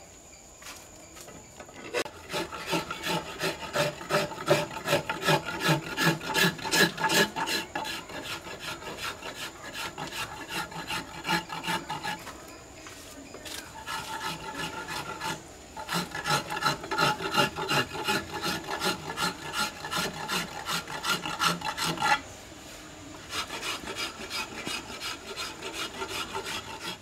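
Hand file rasping on hard wood in quick back-and-forth strokes, about three a second, in several runs with short pauses between. The file is shaping a carved wooden elephant tusk.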